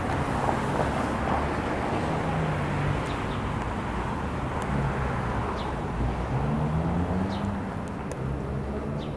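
Motor vehicle engine running amid steady road noise, its hum rising in pitch from about six seconds in as it speeds up.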